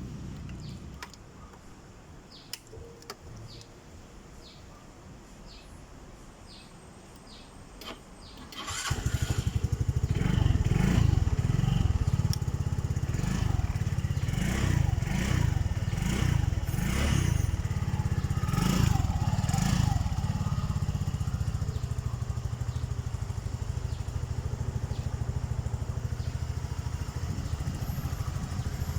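Royal Alloy GP180 scooter engine starting after about eight seconds of faint, regular ticking, then revved in a run of about eight short throttle blips before settling into a steady idle.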